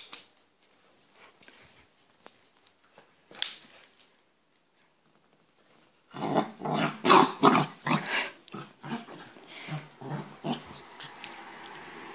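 Pembroke Welsh Corgi puppy growling in play: a few seconds of scattered light clicks, then, about halfway through, a loud run of rapid, pulsing growls lasting about four seconds.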